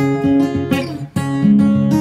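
Background music: acoustic guitar strumming chords.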